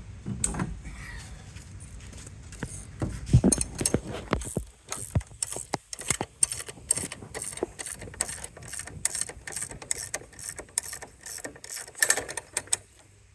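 Metal ratchet mechanism being worked by hand: a run of quick, evenly spaced clicks, several a second, from about four seconds in, after a few knocks of metal hardware.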